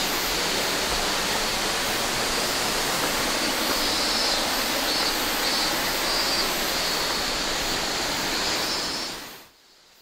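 Steady rushing of falling water from Nunobiki Falls, fading out near the end.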